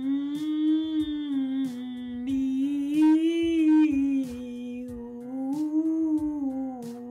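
Woman's alto voice singing a resonance warm-up in one long breath: a hummed 'mm' that opens into 'mi' about two seconds in, then 'ou' about four seconds in. The pitch swells gently up and back down twice around middle C.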